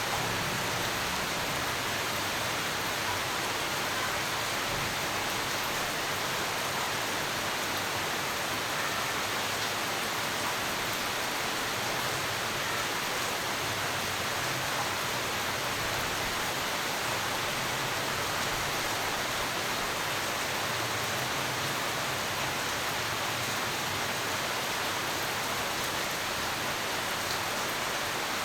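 Steady rainfall, an even hiss with no let-up.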